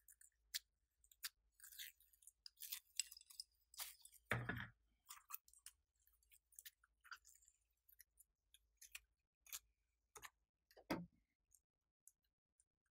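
Glossy slime being pressed and stretched by hand, giving faint, irregular sticky clicks and pops. A louder, deeper squish comes about four seconds in and another near eleven seconds.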